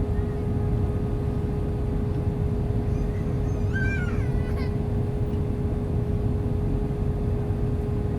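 Steady cabin noise of an Airbus A320 on approach: a low, even rumble from its two IAE V2527E-A5 turbofans and airflow, with a constant hum running through it.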